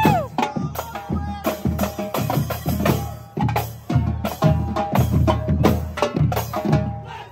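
Marching drumline of snare drums, multi-drum tenors and bass drums playing a fast, loud cadence of sharp strokes over low bass-drum beats. The playing breaks off near the end.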